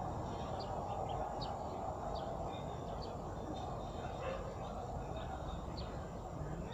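Small birds chirping, short high chirps repeated every half second to a second, over a steady low outdoor rumble.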